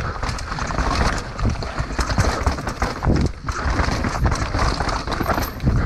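Downhill mountain bike rattling over a rough dirt trail, with tyres crunching and the chain and frame clattering over bumps. Wind rumbles on the microphone.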